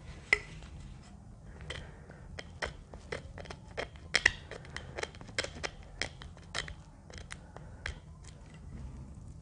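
Knife cutting and picking at the tight plastic shrink-wrap on a pack of playing cards, in a string of sharp, irregular clicks and crackles.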